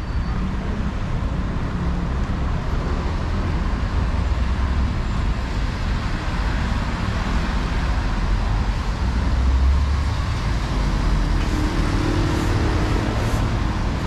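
City street traffic: a steady rumble of cars and trucks with tyres hissing on the wet road, swelling as a vehicle passes about nine or ten seconds in.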